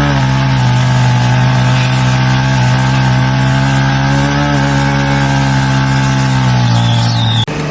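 A motor engine running loud and steady at high speed, holding one pitch, then cut off abruptly near the end.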